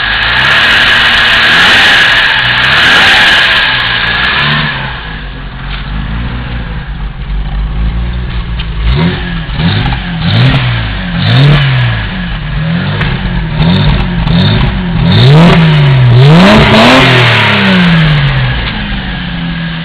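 BMW 520's engine revved by someone else at the throttle. It is held high for the first few seconds, drops back, and from about nine seconds in is blipped about ten times in quick succession, the revs rising and falling each time, before easing back near the end.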